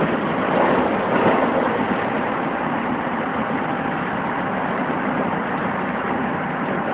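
Steady running noise of a Keisei 3700 series electric train, heard from inside just behind the driver's cab: wheels rolling on the rails with the hum of the car body. It swells slightly about a second in.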